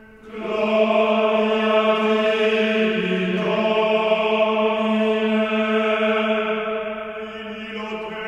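Vocal music: a chant-like drone of voices holding one long note. A fuller held chord swells in about half a second in and slowly fades toward the end.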